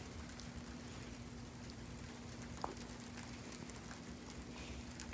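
Sleet falling: a faint, steady patter of ice pellets with scattered light ticks, one a little louder near the middle.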